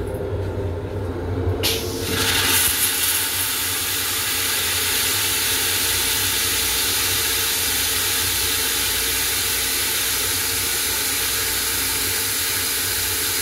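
M7 railcar toilet flushing: a steady rushing hiss starts about two seconds in and keeps going evenly.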